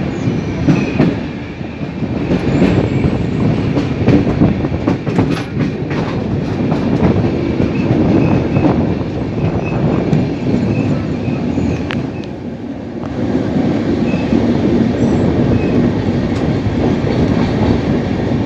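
Passenger train running, heard from aboard: a steady rumble of wheels on the rails with scattered clicks over rail joints and a few faint, short wheel squeals.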